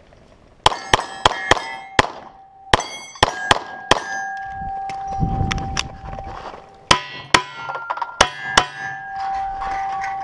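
Glock 34 9mm pistol firing two quick strings of shots at steel plates, each hit followed by the clang and ringing of the struck plate. The strings are split by a gap of about three seconds in the middle.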